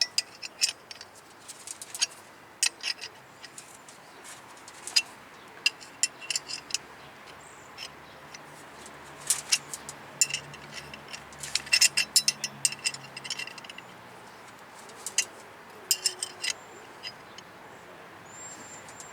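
Irregular sharp metallic clicks and ticks of a brake-line flaring tool being screwed down with a wrench, pressing the first bubble stage of a double flare into a steel brake line.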